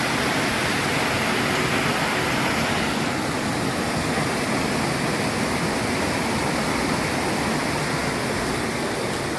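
Waterfall rushing steadily, a constant wash of falling water; the sound shifts slightly about three seconds in.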